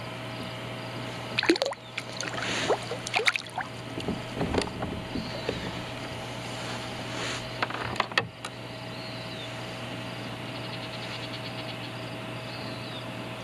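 Splashing and knocking at the side of a kayak as a just-landed smallmouth bass is let go into the lake, then a couple of sharp knocks about eight seconds in. Between them a steady low hum.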